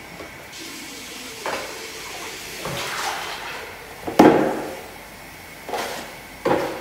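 Pink plastic cat litter tray knocking and bumping against a bathroom sink as it is handled and washed: about five separate hollow knocks, the loudest a little after four seconds in.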